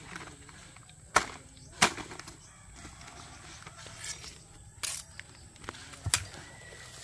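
Machete blade chopping into young green coconuts: four sharp chops with pauses between, plus a fainter stroke in between.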